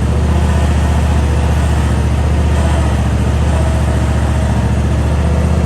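27 hp Kohler twin-cylinder engine of a Simplicity Prestige riding mower running steadily at an even pitch.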